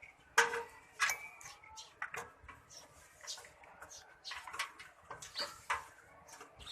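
Irregular sharp clicks and knocks of metal parts and screws being handled on an open desktop computer case during reassembly, several with a short metallic ring, the loudest about half a second in.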